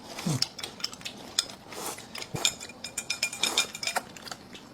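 Utensils clicking and clinking irregularly against bowls and dishes during a noodle meal, with a brief low falling sound near the start.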